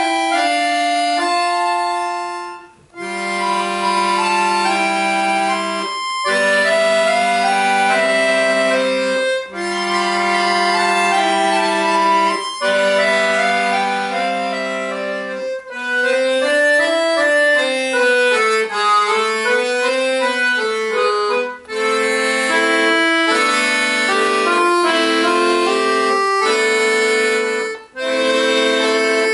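Accordion solo: held chords under a melody, played in phrases a few seconds long with short breaks between them, and a quicker, more moving passage near the middle.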